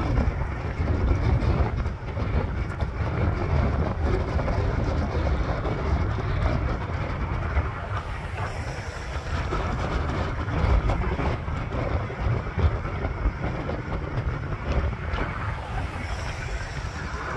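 Electric scooter riding along on asphalt: a steady rumble and rattle from its small wheels on the road surface, mixed with wind buffeting the microphone.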